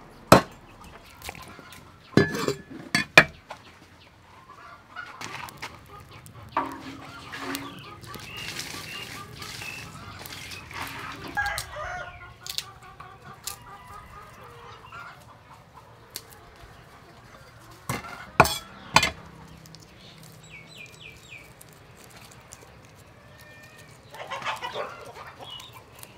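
Meat cleaver chopping chicken on a wooden chopping board: a few sharp strikes near the start and two more about two-thirds of the way through. Between them, chickens cluck and a rooster crows in the background.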